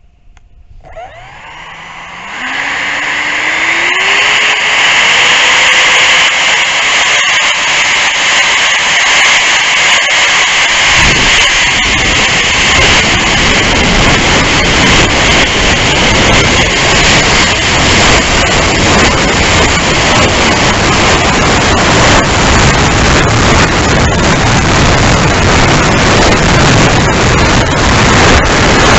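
Electric ducted fan of a Freewing Lippisch P.15 RC jet spooling up to full power, its whine rising in pitch over the first few seconds and then holding high. About eleven seconds in, a loud wind rush over the onboard camera joins the fan as the plane flies at speed.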